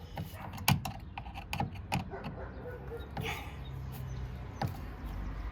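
Scattered clicks and light knocks as the macerator's hose coupler, band clamp and support are handled and pushed into place, over a steady low hum.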